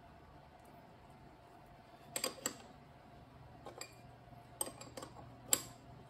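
A wrench clinking against a bicycle crank arm and pedal: a handful of short, sharp metallic clinks with a slight ring, spread out over a few seconds, the loudest a little after five seconds in. A steady low hum runs underneath.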